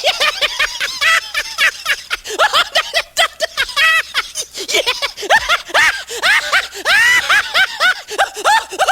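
High-pitched laughter: a quick string of short squealing notes, each rising and falling in pitch, several a second.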